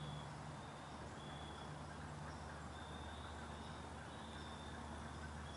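Faint woodland ambience: a short, high chirp repeats about once a second over a low, steady hum.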